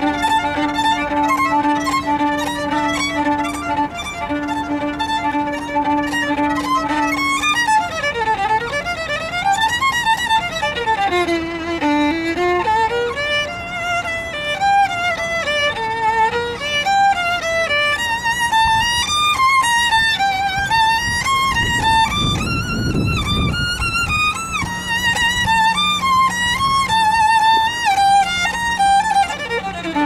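Solo violin, bowed: a steady low note is held under the melody for the first seven seconds or so, then the playing turns to quick runs that climb and fall.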